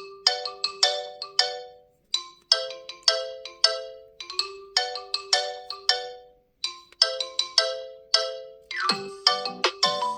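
OnePlus 11 ringtone playing: a melody of short struck notes that each ring and fade, its phrase repeating about every two seconds. A busier phrase with lower notes comes in about nine seconds in.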